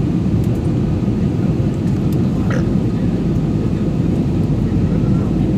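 Aircraft noise: a steady low rumble of jet or propeller engines, holding level without rising or falling.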